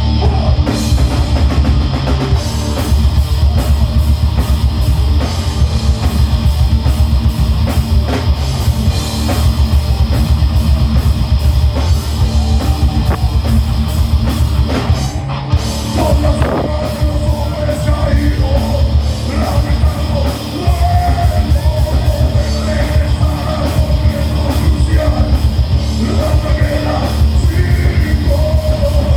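Heavy metal band playing live: loud distorted electric guitars and bass over a drum kit, with a sustained melodic line in the second half.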